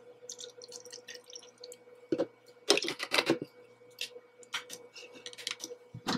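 Coffee poured from a plastic bottle into a paper cup, then small clicks and knocks as the bottle and cup are handled on a stone-look counter, with a louder cluster of knocks about two to three seconds in.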